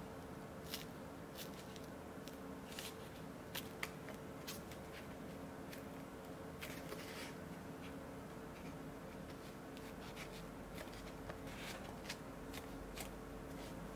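Light, scattered clicks, taps and rustles of fingers handling a plastic caliper storage case with a foam insert, over a faint steady hum.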